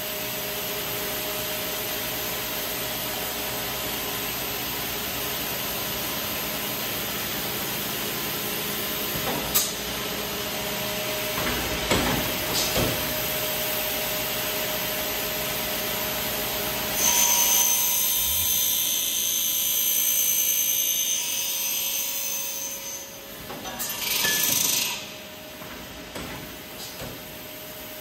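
Eisele automatic circular saw running with a steady hum and a held tone, broken by a few sharp clicks. About 17 s in, a louder, shrill cutting sound lasts several seconds as the blade goes through the stock. A second short loud burst comes a couple of seconds later.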